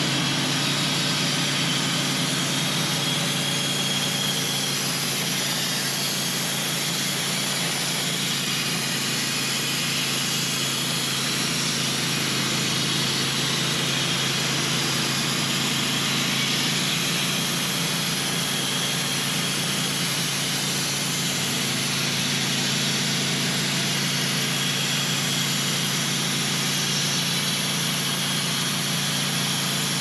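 Portable band sawmill cutting a large log: its gas engine runs steadily under load while the band blade saws through the wood.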